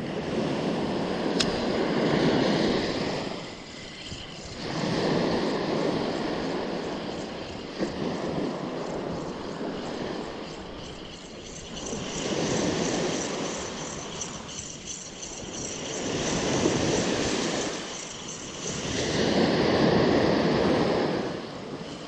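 Small surf waves breaking and washing up a sandy beach, rising and falling in slow surges every three to four seconds.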